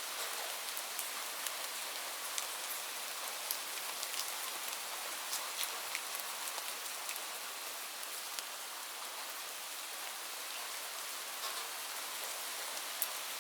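Light rain falling steadily, a soft even hiss with scattered individual drops ticking sharply on a surface.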